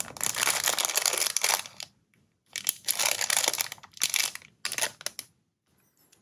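Small plastic bag of building-block pieces crinkling and rustling as it is handled, in three stretches: about two seconds, about two seconds, then a short half-second one.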